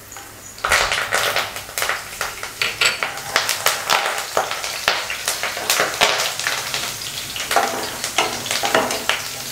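Fresh curry leaves crackling and spitting in hot oil with garlic and black peppercorns, stirred with a wooden spatula. The crackling starts suddenly about half a second in and keeps up in quick irregular pops.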